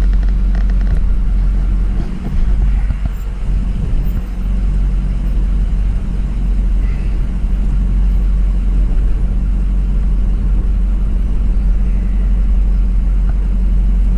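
A pickup truck camper driving on a dirt off-road trail: a steady, loud, low rumble of engine and tyres.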